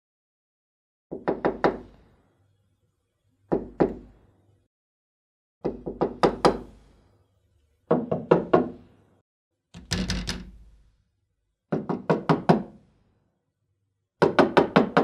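Knuckles knocking on a simple wooden door: repeated groups of several quick raps, about two seconds apart, each group fading with a short room echo.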